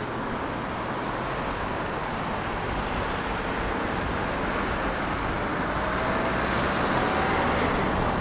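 Road traffic noise: a vehicle going by, the sound growing steadily louder, with a faint rising whine in the second half.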